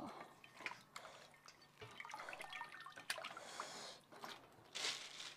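Wet squelching clicks and drips as a geoduck clam is pried out of its shell by hand and lifted, liquid dripping off its body.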